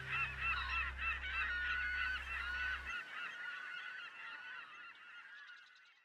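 A flock of gulls calling in many short overlapping cries, fading out over the last couple of seconds. Beneath them a low sustained music drone stops about three seconds in.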